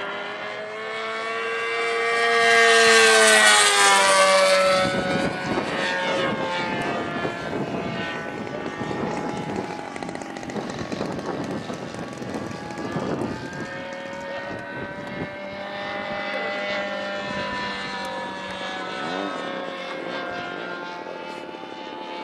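Propeller engines of racing RC model airplanes, a nitro glow-fuel plane and a large gas-engined plane, running at full throttle. One plane makes a loud close pass about three seconds in, its engine pitch dropping as it goes by; the engines then drone on farther off, rising and falling as the planes circle the course.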